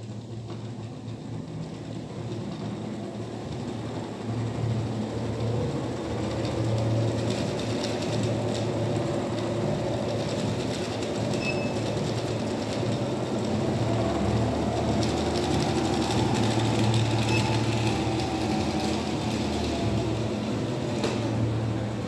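Treadmill running with a toy tractor on its moving belt: a steady low motor hum with a rattling clatter, getting louder over the first several seconds.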